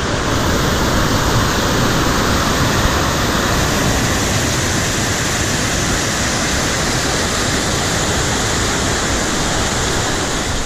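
Whitewater rapids pouring over the rock ledges of a river, heard up close: a loud, steady rush of water.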